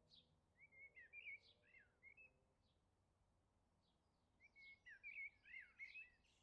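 Faint songbird singing two short phrases of quick chirping notes a few seconds apart, over a quiet outdoor background.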